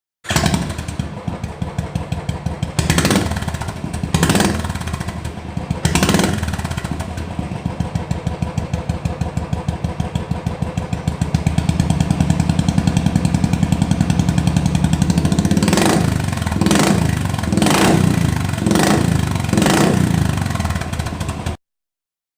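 Royal Enfield single-cylinder motorcycle idling through an aftermarket silencer with a deep, even thump, blipped sharply a few times early on and then in a quick run of about five revs near the end.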